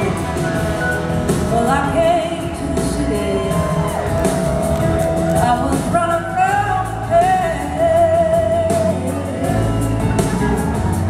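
Live blues-rock band: a woman singing a slow melody, holding notes with vibrato, over electric guitars, bass and drums.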